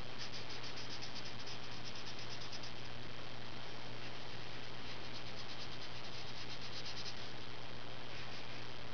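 Crayola Super Tips felt-tip marker scratching on paper in rapid back-and-forth coloring strokes. It comes in two runs of a couple of seconds each, with a pause between and a brief stroke near the end.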